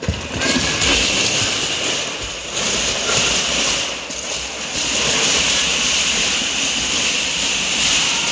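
Thousands of wooden Kapla planks toppling and pouring down in a loud, continuous clatter as a large plank structure collapses, starting abruptly and running on with small swells.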